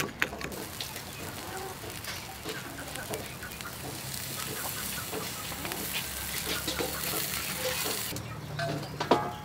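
Beef slices sizzling on a wire grill over charcoal: a steady hiss that cuts off suddenly about a second before the end. Chickens cluck in the background.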